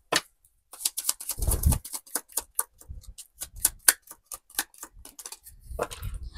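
Tarot cards being shuffled by hand: a run of quick, irregular card clicks and slaps, with one duller knock about a second and a half in.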